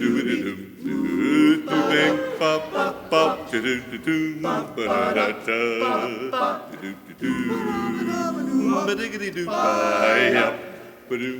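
Male barbershop chorus singing a cappella in close harmony, with no instruments.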